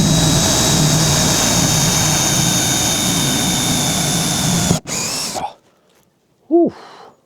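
Power drill running steadily under load while drilling a cable hole, with a high whine. It stops for a moment near the five-second mark, runs again briefly and cuts off, and is followed by a breathy 'whew'.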